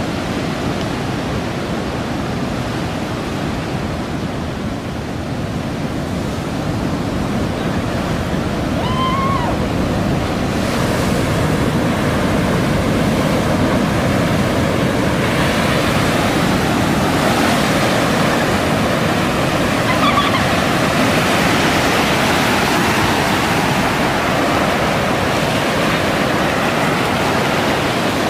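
Rough, cyclone-driven storm waves surging and breaking, a steady rush of water that grows louder about a third of the way in.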